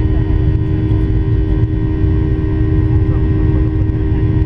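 Steady cabin noise of a Boeing 737-800, its CFM56-7B jet engines running with a deep rumble and a steady hum.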